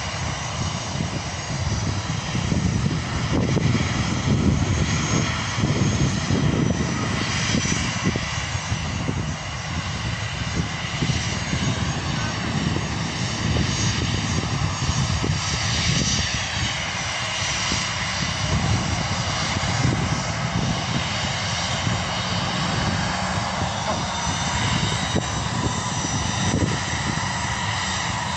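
Airliner jet engines running at taxi power: a steady high whine over a fluctuating low rumble, with a high tone bending briefly about halfway through.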